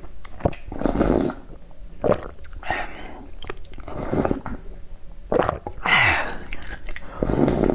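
Slurping sips of hot noodle-soup broth from a plastic ladle, a series of short noisy slurps about a second apart.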